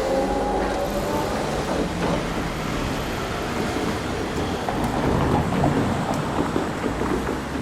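Vehicles passing over a railroad crossing: a steady rumble with no clear tone, loudest about two thirds of the way through.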